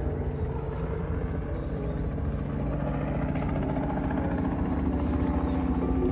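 Robinson R44 helicopter approaching, the rapid beat of its rotor blades and engine hum growing steadily louder as it nears.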